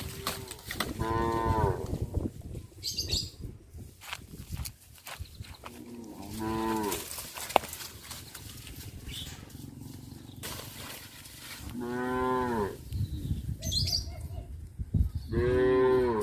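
Cattle mooing, four separate calls spaced a few seconds apart.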